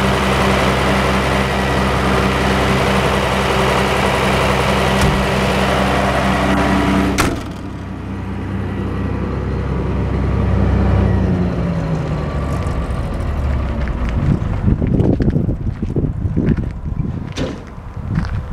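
Atlas Copco QAS 150 generator's diesel engine running steadily; about seven seconds in, a sharp bang as the canopy door shuts muffles it. Some seconds later the engine's note falls away as it winds down, followed by irregular knocks and rustling.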